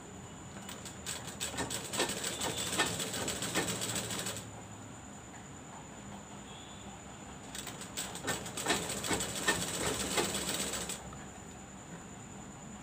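Black sewing machine stitching cloth: a rapid clatter of needle strokes in two runs of about three seconds each, with a pause between them while the fabric is turned.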